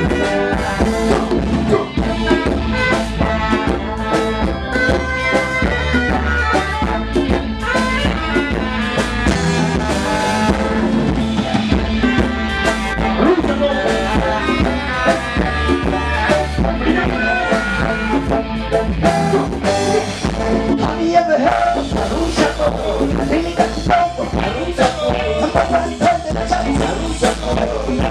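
Live reggae band playing, with a saxophone carrying the melody over drum kit, bass and electric guitar.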